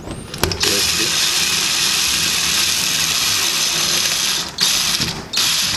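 Cordless drill-driver running as it drives a screw into a door lock's rose: one steady run of about four seconds, a brief pause, then a short second burst near the end.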